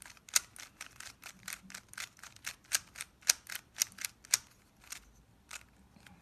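A 3x3 Rubik's Cube being turned by hand over and over, alternating left-side and top-layer turns: quick plastic clicks as the layers snap round, about four a second, thinning out over the last second or two.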